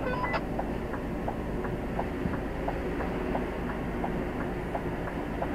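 A 44-ton lorry's diesel engine running low and steady while the truck creeps along, with a light ticking about three times a second over it.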